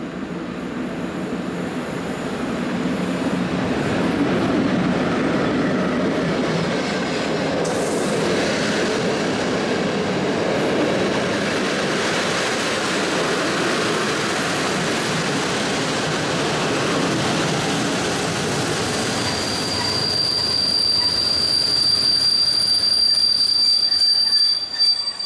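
PKP Intercity passenger train, hauled by a Class EU07 electric locomotive, rolling into the platform with its wheels and coaches rumbling past. In the last few seconds a steady high-pitched brake squeal sets in as the train slows to stop.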